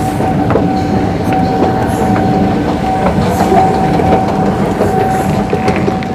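Escalator running: a steady low rumble with a constant hum and scattered light clicks.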